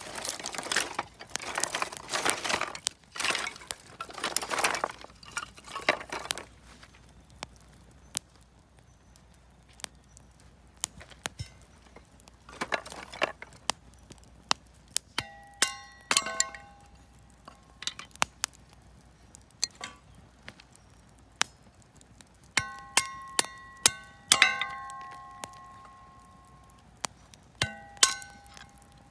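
Wood fire of scrap lumber and firewood crackling with scattered sharp pops. A rustling noise comes first, and ringing metallic clinks follow in several clusters from about halfway.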